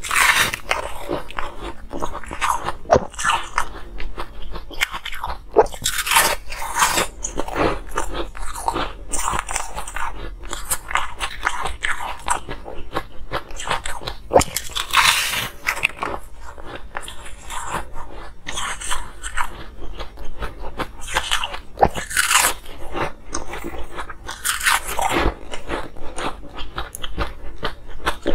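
A person biting into and chewing frosty, waffle-shaped pieces of frozen ice: repeated crisp crunches, with several louder bites spread through and crackly chewing in between.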